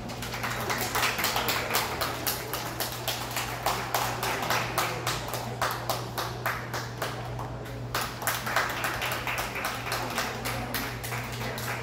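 Scattered hand-clapping from a small group of spectators, irregular claps several times a second, over the steady low hum of the hall's fans.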